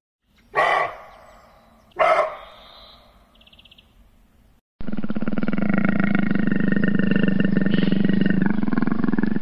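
Two short, sharp deer calls, about half a second and two seconds in, each fading quickly. From about five seconds in a tiger roars in one long, steady, unbroken call.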